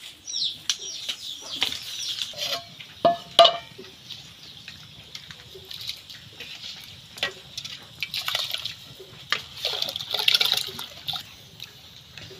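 Water sloshing and splashing in an aluminium pot as a hand swishes through it, washing rice. About three seconds in there is a loud ringing metal clank from the pot, and birds chirp near the start.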